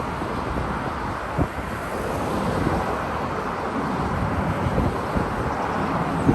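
Steady jet roar of an Airbus A380's engines heard from the ground, with wind buffeting the microphone in a few brief low thumps.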